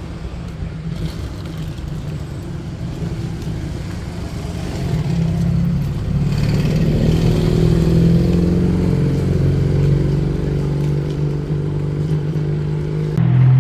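A motor vehicle's engine running with road noise, picking up speed and getting louder about five seconds in.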